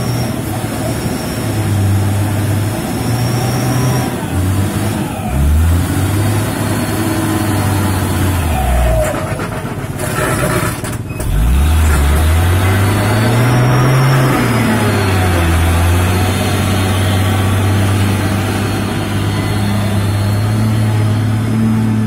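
Diesel engine of a loaded Mitsubishi Fuso truck running hard on a muddy dirt road. Its pitch dips sharply and climbs back twice, about five and eleven seconds in, then holds steady as the truck passes close by.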